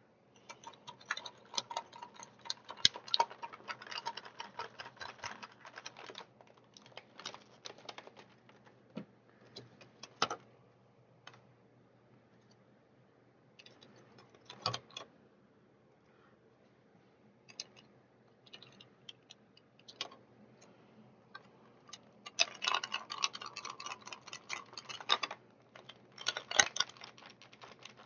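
Plastic toy packaging being handled and pulled apart: runs of crinkling and small clicks, with a single sharper knock about halfway through and a quieter stretch around it.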